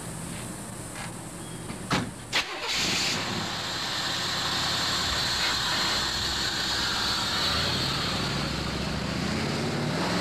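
Chevrolet V8 in a Suzuki Samurai conversion: two sharp knocks, then the engine starts a little under 3 seconds in and runs steadily, rising in pitch near the end as the vehicle pulls away.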